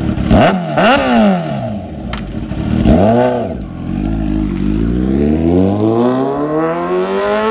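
Motorcycle engine revved in short throttle blips that rise and fall in pitch, then accelerating with its pitch climbing steadily over the last few seconds.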